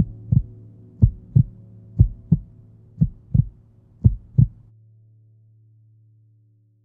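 Heartbeat sound effect: five slow double thumps, about one a second, over a low steady drone. The beats and most of the drone stop about two-thirds of the way through, leaving a faint hum that fades away.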